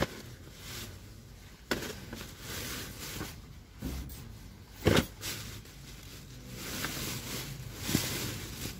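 Plastic rubbish bags rustling and crinkling as they are handled and pulled about, with a few sharp knocks, the loudest about five seconds in.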